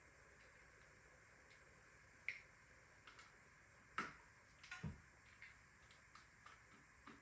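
Near silence broken by a few sparse clicks and taps, the sharpest about two and four seconds in, with a low thud just before five seconds: small bicycle parts and tools being handled while a bike is stripped.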